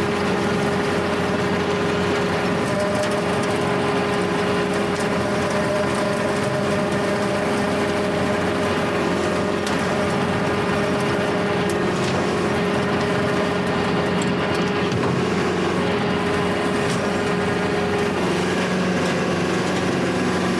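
Kubota L4701 diesel tractor running a Countyline brush hog (rotary cutter), a steady mechanical drone with a steady tone in it; the cutter's bearings are worn and can be heard. The pitch shifts about eighteen seconds in.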